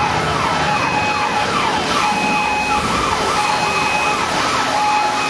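Sirens wailing in repeated up-and-down glides, quick at first and slower later, with a steady alarm tone coming and going over a constant rushing noise: the emergency effects of a theme-park earthquake ride.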